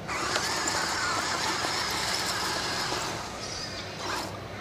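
Rover 5 robot chassis driving over gravel: its small electric gearmotors whine and its wheels crunch. The sound starts abruptly and eases off about three seconds in.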